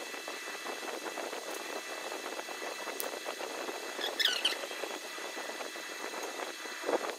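Steady background room noise, with a single click about three seconds in and a short high warbling squeak just after four seconds.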